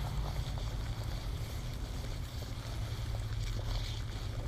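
Kelly Kettle chimney kettle at a rolling boil over a twig fire: a steady low rumble with a few faint crackles.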